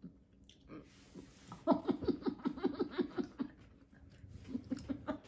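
A woman takes a sharp breath, then laughs in a quick run of short bursts, with a second, softer burst of laughter near the end.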